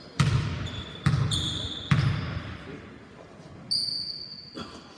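A basketball being dribbled three times on a hardwood gym floor, each bounce a sharp echoing thud about a second apart, as a free-throw shooter readies a shot. A couple of short high squeaks follow, one near the middle and one later on.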